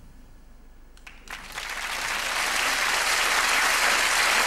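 Studio audience breaking into applause about a second in: a few first claps, then building quickly into full, steady clapping.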